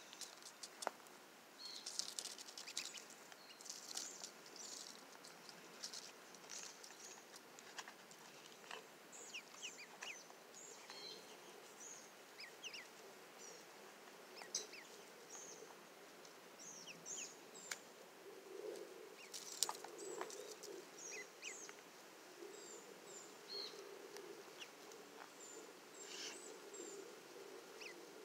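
Two-day-old Cayuga ducklings peeping softly in short, high chirps while they forage, with light rustling and pecking clicks in the grass.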